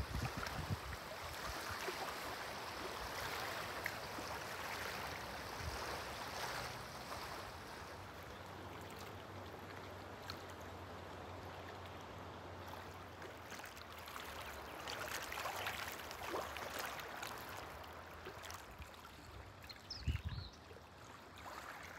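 Soft, steady rushing of wind and water at a lakeshore, with a faint low hum for several seconds midway and a short low thump near the end.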